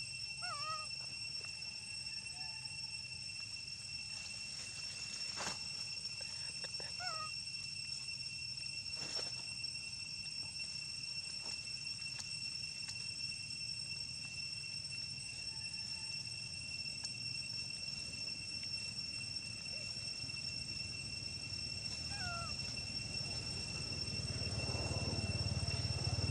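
Monkey giving a few short, high, sweet calls, each a brief bending whistle, spaced several seconds apart, the sound it makes to beg for more food. A steady high whine runs beneath, and a low rumble swells near the end.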